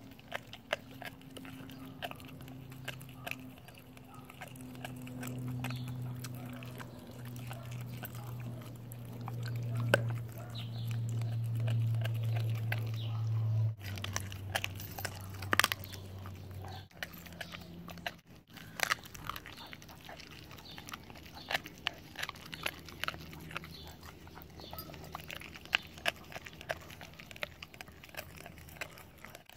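Siberian husky gnawing a raw chicken foot, its teeth crunching and clicking on the bones in a steady run of small sharp snaps. A low steady rumble runs under the first half, loudest about ten to fourteen seconds in, then drops away.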